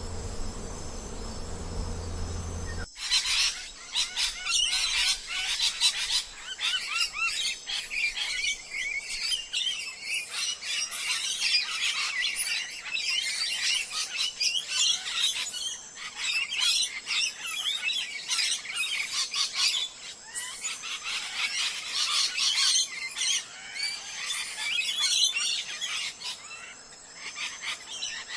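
A steady buzzing hum that cuts off abruptly about three seconds in, replaced by a dense chorus of many small birds chirping and chattering at once, busy and continuous.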